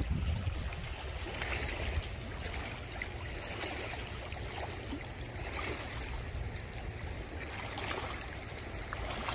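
The Yellowstone River in flood, fast muddy water rushing steadily past the rocky bank, with wind rumbling on the microphone.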